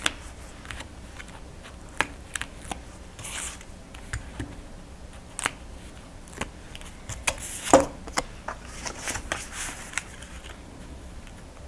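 Cardstock and tape backing being handled: a hooked tool picks at and peels the release liner off double-sided tape on a small piece of cardstock, which is then laid down on a card. The sound is scattered light clicks, taps and short paper rustles, with a slightly louder rustle about two-thirds of the way through.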